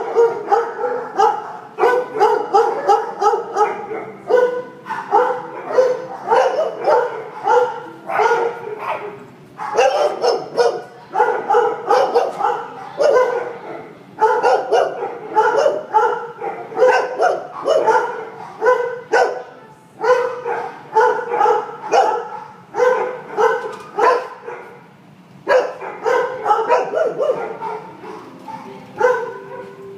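Shelter dogs in their kennels barking over and over, two or three barks a second, with a few short lulls.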